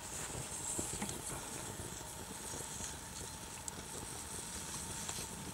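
Kettle of water hissing and starting to bubble on a wood fire in a folding firebox, with small crackling clicks from the burning wood.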